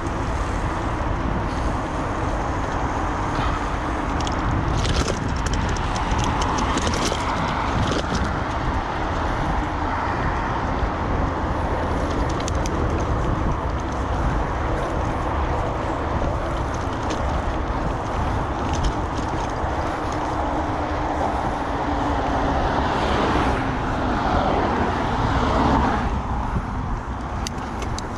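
Road traffic heard over a steady low rumble of wind on the microphone while cycling. A vehicle passes about 23 to 26 seconds in, growing louder and falling in pitch before it drops away suddenly.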